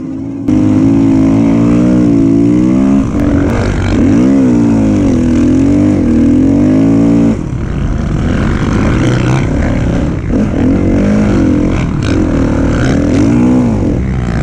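Dirt bike engine under load in soft sand dunes, revving up and down, its pitch rising and falling with the throttle. It opens up sharply just after the start, eases back about halfway through, then keeps revving in swings.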